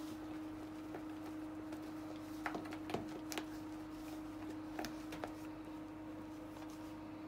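A few light clicks and taps, about five in all, spread between two and five seconds in, over a steady low hum.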